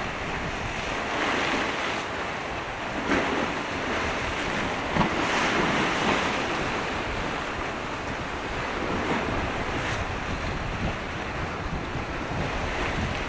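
Strong, gusty wind blowing across the microphone: a steady rushing noise that swells a few times, around three seconds in and again around five to six seconds in.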